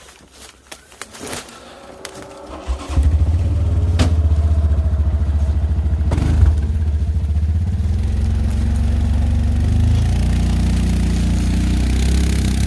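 A few light clicks, then about three seconds in the Yamaha Rhino 700 side-by-side's engine starts and keeps running steadily.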